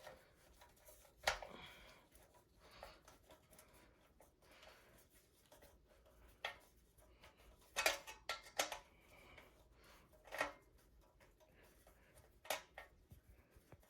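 Screwdriver working a tight screw out of a ceiling fan's metal motor housing: scattered light clicks and scrapes at irregular intervals, a few close together about halfway through.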